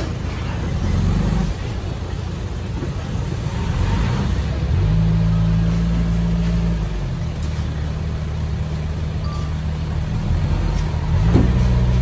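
Small bulldozer's diesel engine running under load, its speed rising about five seconds in, easing back a couple of seconds later and rising again near the end.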